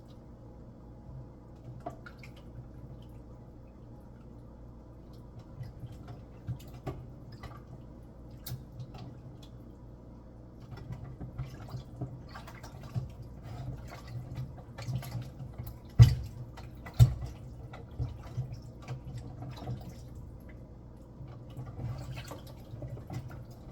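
Kitchen work at a sink: water dripping and the small clicks and knocks of dishes and utensils, busier in the second half, with two loud sharp knocks about two-thirds of the way through.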